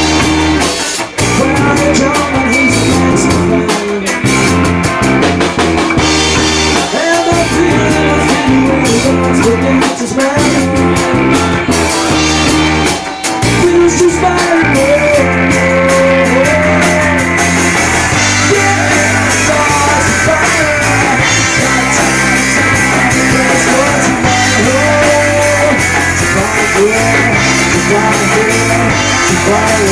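Loud rock music: drum kit, guitar and a singing voice.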